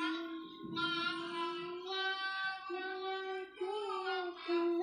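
A child singing sholawat, a devotional Islamic chant, solo, in long held notes with short breaks between phrases.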